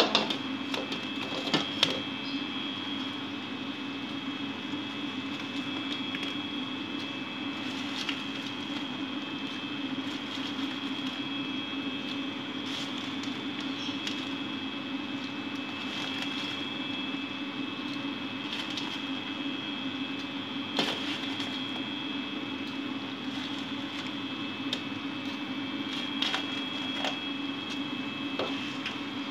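A steady mechanical hum with a thin high whine running through it, and a few sharp clicks and knocks of a utensil against the cooking pot, mostly in the first two seconds.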